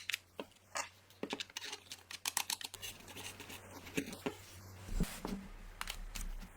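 Irregular light clicks and taps of a screwdriver and small parts as the plastic casing of an electric screwdriver is screwed back together, over a faint steady low hum.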